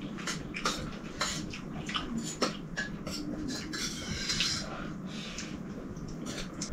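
Metal spoons clinking and scraping irregularly against metal plates as two people eat rice and curry.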